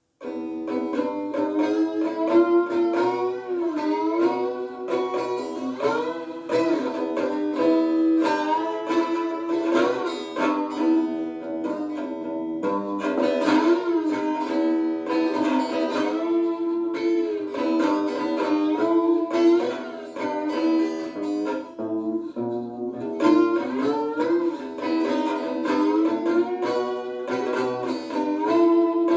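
Homemade three-string diddley bow (cigar box slide guitar) played with a slide, its notes gliding up and down between pitches in a bluesy line, with the strings left to ring on.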